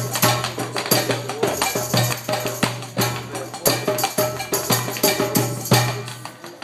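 Tap dancing to live jam music: quick, uneven runs of sharp taps from tap shoes striking the floor over a band with a steady low bass.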